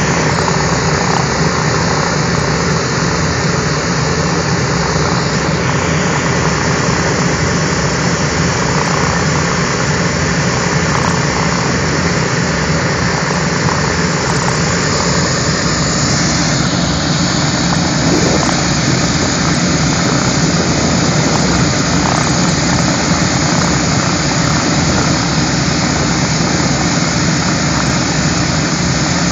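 Radial piston engines of B-17 and B-24 bombers running steadily on the ground.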